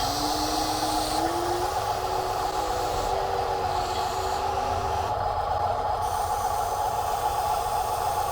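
Steady whine of the small electric motors and plastic gearboxes of RC toy construction trucks running, with thin tones that dip and rise a little as the motors change speed.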